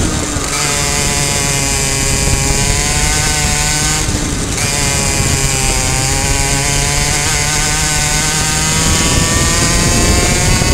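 Two-stroke racing kart engine at high revs. Its pitch falls as the driver brakes into a corner, then climbs again as the throttle opens in the second half.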